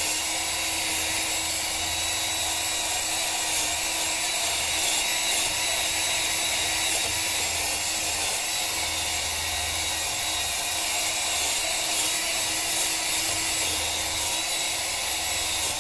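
Rotary wire brush in a power drill running steadily at medium speed, scouring rust and corrosion out of the steering knuckle's wheel bearing bore and face. A constant scratchy hiss over a steady motor hum, stopping near the end.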